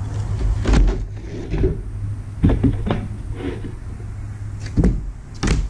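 Quarter-inch plywood sheets being handled on a workbench: several knocks and scrapes of wood against wood as a sheet is picked up and moved, over a steady low hum.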